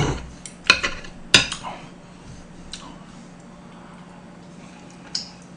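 Metal chopsticks clicking against dishes: two sharp clicks in the first second and a half, then low room noise, with another click near the end.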